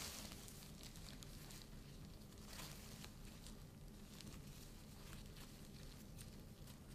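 Faint rustling and crinkling of a plastic isolation gown's sleeves as the arms move behind the head to tie surgical mask ties, with small ticks and soft swells over a low steady room hum.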